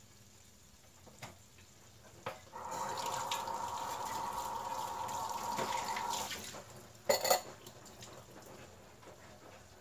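Water running, as from a tap, for about four seconds, then two sharp knocks a moment after it stops.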